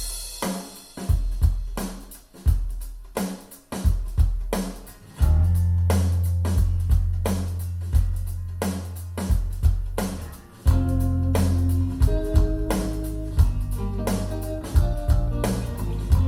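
A pop-rock song's instrumental intro played back over B&W 706 S2 bookshelf speakers driven by a Luxman L-505uX II amplifier. It opens on a drum-kit groove of kick, snare and rimshot hits. A heavy bass line comes in about five seconds in, and guitar or keyboard notes join about eleven seconds in.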